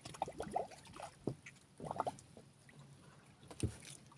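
Faint water trickling and dripping around a small wooden boat, with two sharp knocks.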